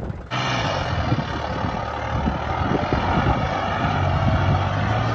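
Turbocharged Mustang tractor's diesel engine running steadily under heavy load while pulling a disc harrow through the soil.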